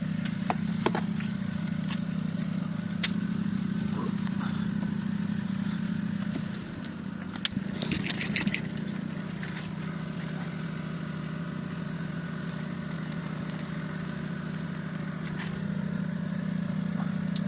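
Truck's diesel engine running steadily as a low drone, with scattered light clicks and a short cluster of rattling clicks about eight seconds in.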